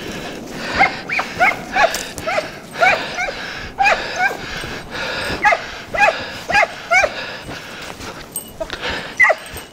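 Estonian hounds yelping in short rising-and-falling yelps, about two a second, as they are put onto a fresh hare track. The yelps break off for a couple of seconds before two more come near the end.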